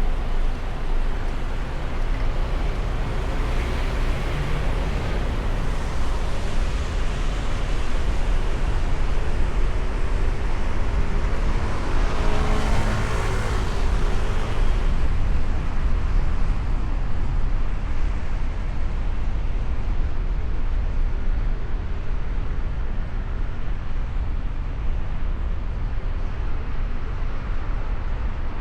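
Steady road and engine rumble of traffic heard from a moving vehicle. About halfway through, another vehicle passes close by, its engine note falling in pitch as it goes past.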